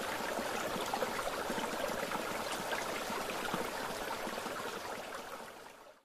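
Running water of a stream: a steady rushing wash with small scattered splashes, fading out near the end.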